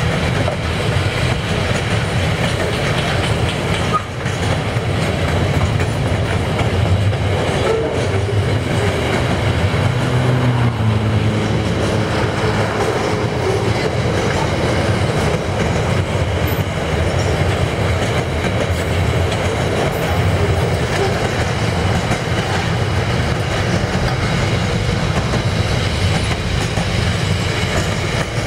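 Freight wagons of a long train rolling past at speed: flat wagons loaded with steel coils, then container wagons, making a steady noise of steel wheels running on the rails.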